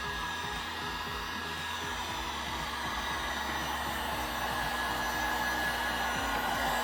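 Heat gun blowing steadily over freshly poured epoxy resin to push the white into rippled wave patterns. Its fan runs with a thin whine and grows slightly louder near the end.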